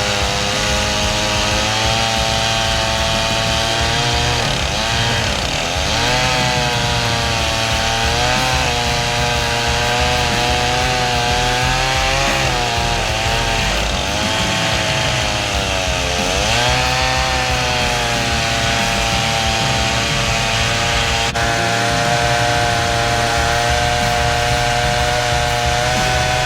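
Stihl MS 391 two-stroke chainsaw on a chainsaw mill, running at high revs while ripping lengthwise through a white oak log. Its pitch sags and recovers several times as the cut loads the engine.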